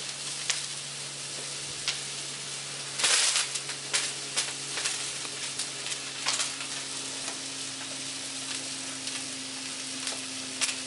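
Flames burning inside a gas grill: a steady sizzling hiss with scattered sharp crackles, and a louder crackling flare-up about three seconds in. A faint steady hum runs underneath.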